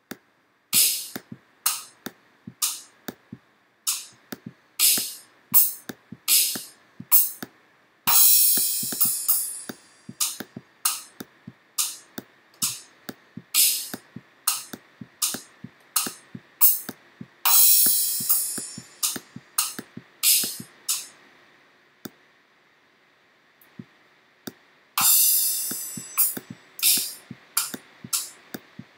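Sampled drum and cymbal sounds from an interactive drum-kit program, each triggered by a mouse click on a pad or cymbal. There are single short drum hits at irregular intervals and three longer cymbal crashes that ring on.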